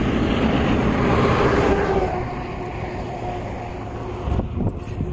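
A big truck driving past at road speed: its engine and tyre noise builds, peaks about one to two seconds in as it passes, then fades as it goes away.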